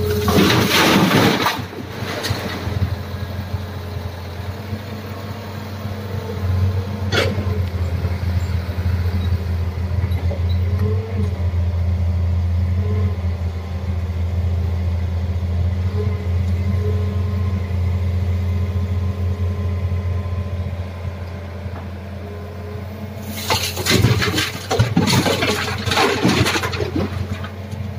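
Excavator bucket dumping a load of earth and rock into a steel dump-truck bed: a rushing clatter for about two seconds at the start and again near the end, with a single sharp knock about seven seconds in. A diesel engine idles steadily underneath.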